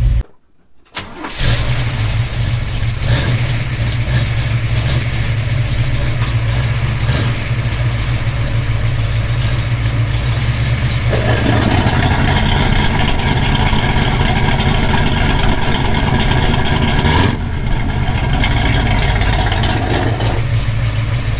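Pontiac 467-cubic-inch V8 in a 1969 GTO running through newly fitted electric exhaust cutouts, a loud unmuffled rumble heard close to the exhaust under the car. After a short gap near the start the engine runs steadily; about eleven seconds in its sound turns fuller and harsher, with a brief dip a few seconds before the end.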